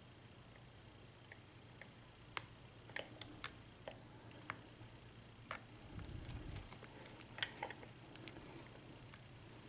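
Lock pick and tension wrench working the pins of an American Padlock A1100's six-pin cylinder, pinned with serrated and standard spools: faint, irregular small clicks while probing for the binding pin, with a soft low bump near the middle.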